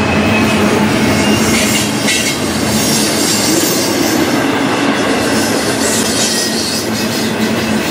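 Double-stack intermodal freight cars rolling past at speed: a steady, loud rumble of steel wheels on rail, with a high-pitched wheel squeal that comes and goes.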